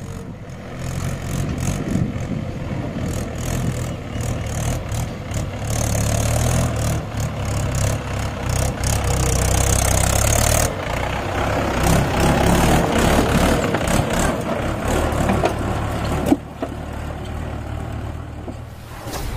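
Mahindra 575 tractor's diesel engine running as it pulls a trolley loaded with stones along a dirt track, getting louder as it comes close and passes. A single sharp knock near the end.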